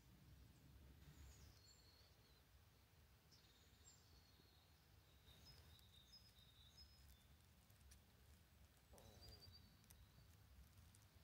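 Near silence: faint outdoor ambience with a few short, high bird chirps scattered through, over a low, even rumble.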